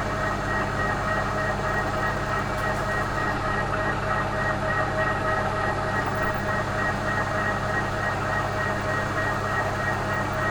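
Milling machine running steadily, its motor and drive giving a constant hum with a few steady whining tones.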